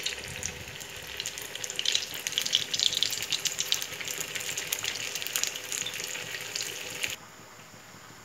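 Sabudana vadas deep-frying in hot oil in a kadhai: a steady, dense crackling sizzle that cuts off abruptly about seven seconds in, leaving only a faint hiss.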